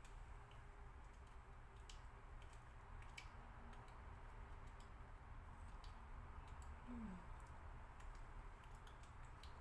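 Near silence: faint room tone with a few sparse soft clicks and a brief low falling tone about seven seconds in.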